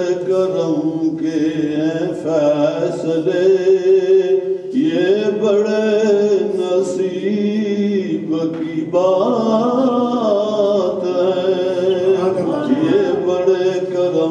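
A boy's voice chanting a naat, a devotional poem in praise of the Prophet, unaccompanied. He sings long, ornamented notes in phrases, with short breath pauses about five and nine seconds in.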